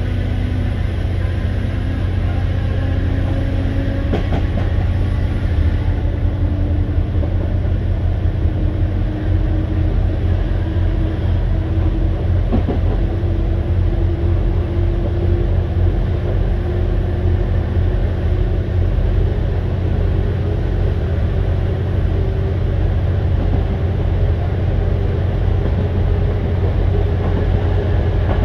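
Class 769 unit's MAN diesel engines running under the floor while the train gathers speed, heard inside the passenger saloon: a steady low rumble with a whine from the traction motors that slowly rises in pitch.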